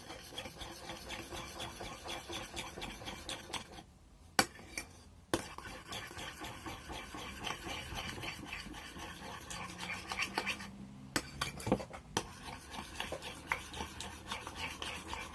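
A spoon stirring glue and blue dye in a bowl, a quick rhythmic scraping against the bowl. It pauses briefly about four seconds in and again near eleven seconds, with a few sharp clicks of the spoon.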